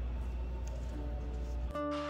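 Background music with a few soft held notes; a new music cue cuts in abruptly near the end.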